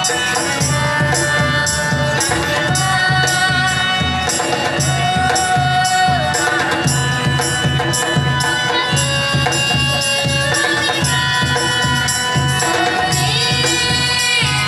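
Dance music with a steady beat and a melody. A high held note comes in near the end.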